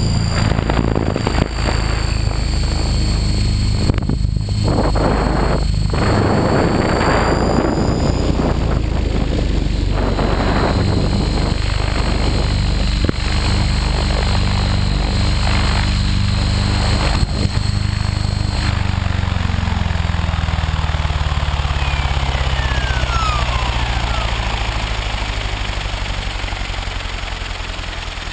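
HK600GT radio-controlled helicopter heard from its onboard camera: the rotor and drive run steadily at flying speed with a high whine, then from about 18 seconds in the whine stops and the rotor pitch slides steadily down as the head spools down and the sound fades.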